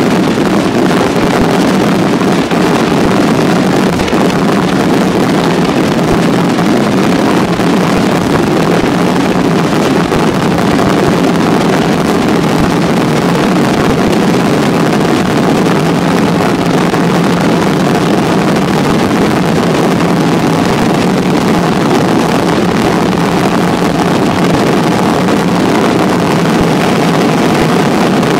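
Aerial fireworks barrage at its densest. Shells and comets fire so rapidly that their bursts merge into one loud, steady, unbroken rumble with no single bang standing out.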